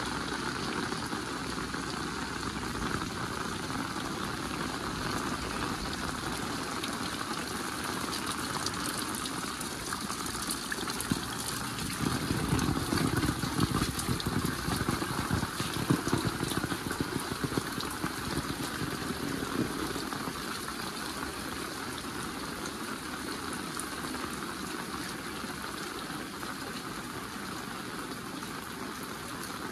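Heavy rain falling steadily, with scattered sharper drop hits; for several seconds around the middle the sound grows louder and fuller.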